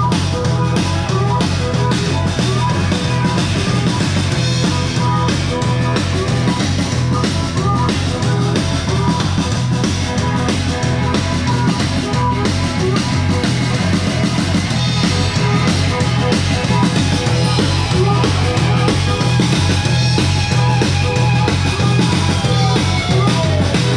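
Rock music with a drum kit, at a steady loud level.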